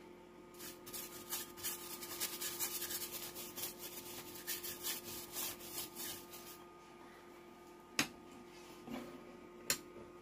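Rapid, repeated scrubbing strokes on the solder side of the Sanyo amplifier's circuit board, cleaning it after soldering; the scrubbing stops about two-thirds of the way in, followed by two sharp clicks near the end.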